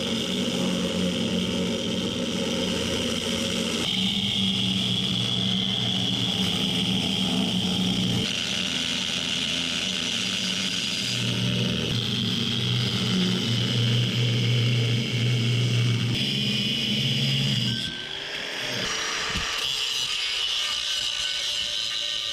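Chicago Electric 4-1/2 in. 6 amp corded angle grinder with a cutoff wheel cutting through a steel tractor PTO shaft tube, a steady high-pitched grinding whine with a heavier low drone under it. About 18 seconds in the sound drops and thins as the shaft is cut through and the grinder runs on lightly.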